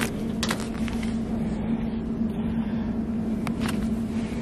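Steady hum of a large store's background, with a constant low tone, and a few light clicks and rustles of towels being handled on a metal shelf.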